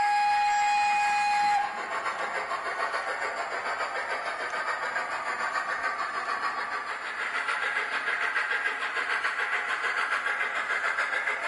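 Steam locomotive sound from a Soundtraxx ECO-21PNEM DCC sound decoder in a Hornby P2 2-8-2 model locomotive. A steady whistle cuts off sharply about one and a half seconds in, then an even, rapid exhaust chuff continues.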